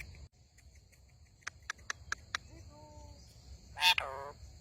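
Pet parrot calling: a few sharp clicks about one and a half to two and a half seconds in, a short lower call, then one loud falling squawk near the end.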